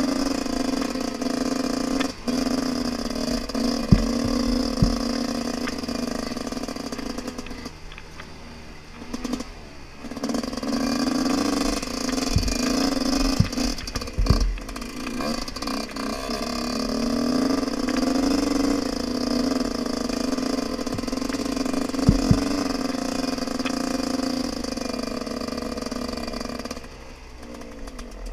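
Dirt bike engine, ridden through a forest trail, revving up and easing off again and again as the throttle opens and closes, with a few sharp thumps from the bike hitting bumps.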